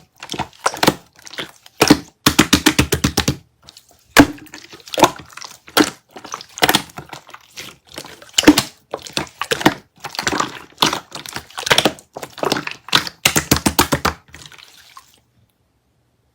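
Clear slime being squished and pressed by hand, making wet clicks and pops of trapped air in quick runs with short pauses; it stops about fifteen seconds in.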